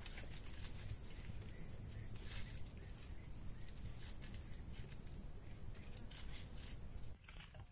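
Small crackles and taps every second or so as white onions are peeled by hand with a knife, over a steady low rumble and high hiss of open-air ambience.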